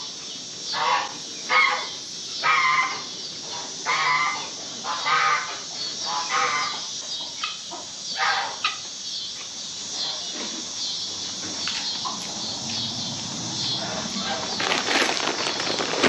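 Domestic geese honking over and over, roughly a call a second, dying away about halfway through. After that comes a steady rustling noise with faint scattered calls.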